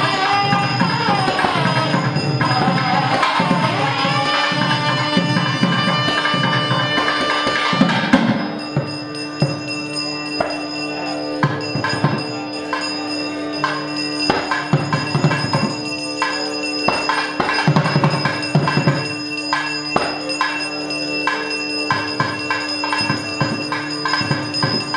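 South Indian temple music. A reedy pipe plays a gliding melody over a steady drone for about the first eight seconds, then stops. After that the drone continues under repeated drum and bell strokes.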